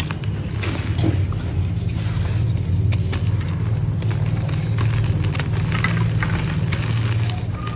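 Dry yellow mud dirt being crumbled, giving scattered crackles and crunches over a steady low rumble.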